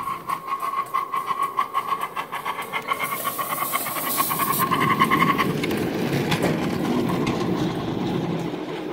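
Coal-fired live-steam model locomotive chuffing in rapid, even beats with a steady high tone running through them, and a burst of steam hiss as it passes close by. The chuffing and tone stop suddenly about five seconds in, leaving the rumble of the riding cars' wheels rolling over the rails.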